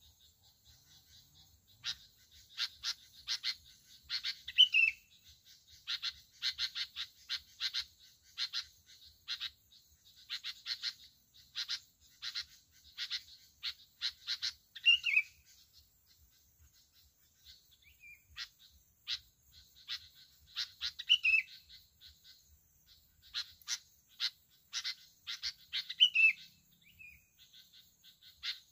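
Bulbuls calling: runs of quick, sharp chattering notes, with a short downward-slurred whistle every few seconds and a brief lull about two-thirds of the way through.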